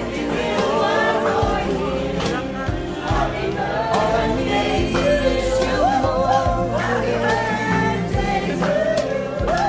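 A small group of voices singing a song together, with instrumental accompaniment underneath.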